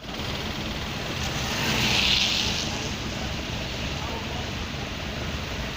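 Steady rushing noise of flowing floodwater, with a louder hissing swell about two seconds in.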